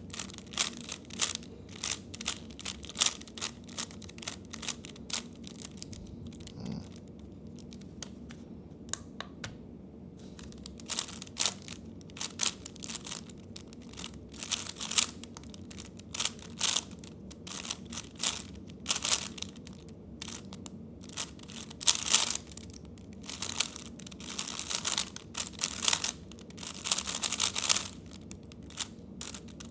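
3x3 speedcube being turned fast by hand: rapid, irregular clicking and clacking of the layers, in bursts with short pauses between them.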